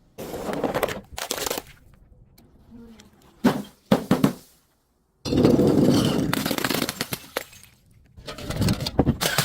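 Objects being crushed and broken: a run of crunching, crackling bursts, with the longest one a little past the middle.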